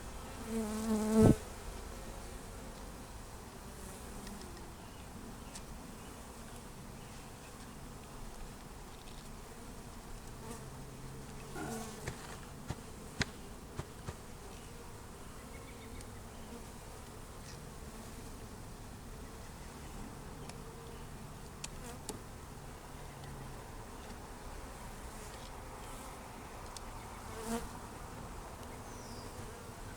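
A mass of Italian honeybees buzzing in a steady hum as they mill around the hive after being shaken out of their package. About a second in there is a brief louder pitched sound ending in a sharp knock, and a few small clicks come near the middle.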